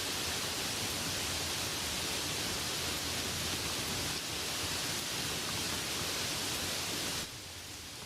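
Light rain falling as a steady, even hiss. About seven seconds in it drops suddenly to a quieter, thinner patter.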